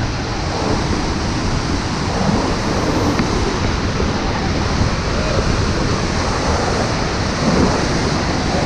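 Waterfall rushing: a loud, steady roar of falling water, with some wind buffeting the microphone.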